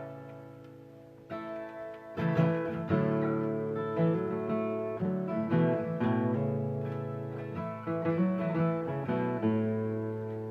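Acoustic guitar playing a song's introduction in A major: a chord left ringing and fading, then from about two seconds in a steady rhythm of strummed chords.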